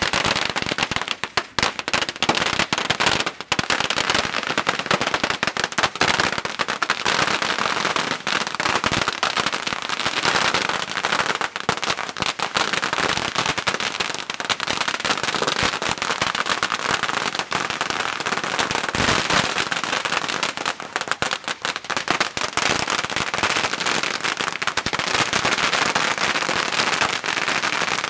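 Masses of firecrackers going off together in a dense, unbroken crackle of rapid, overlapping bangs.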